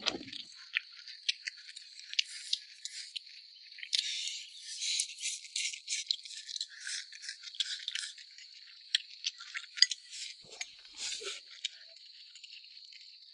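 Crisp, irregular crackling and clicking of crunchy bamboo shoots being chewed, densest around four to six seconds in, with no deeper sound beneath it.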